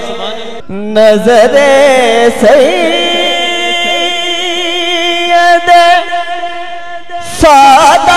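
A man singing an Urdu naat into a microphone, with ornamented gliding phrases that settle into long held notes. He breaks off briefly just before a second in and comes back loudly near the end.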